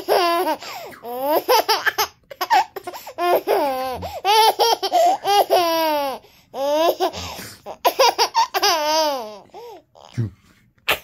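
A baby laughing in several long bouts of high-pitched laughter, with short breaks between them.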